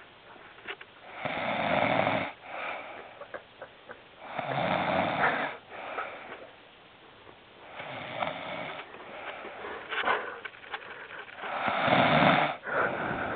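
A sleeping man snoring: four long snores, one about every three and a half seconds.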